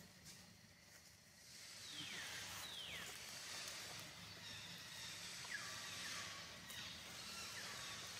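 Faint high animal calls gliding downward in pitch, a few at a time about two seconds in and again near the middle, over a steady outdoor hiss.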